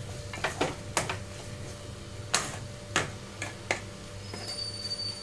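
Wooden spatula stirring potato pieces in a metal kadai, with irregular knocks and taps of the spatula against the pan, about seven in all, over a steady low hum.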